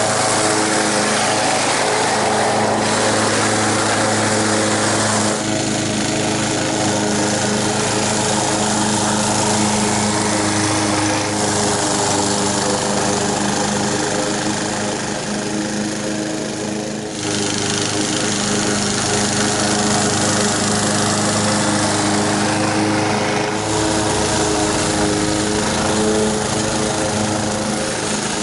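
Honda HR194 push mower's single-cylinder four-stroke engine running steadily under load as it cuts grass, its note shifting slightly a few times.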